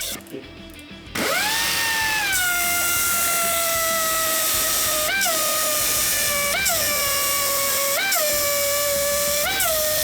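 Metal lathe running with a high machine whine that comes in about a second in and settles slowly lower in pitch, then rises briefly in pitch about every second and a half, over background music.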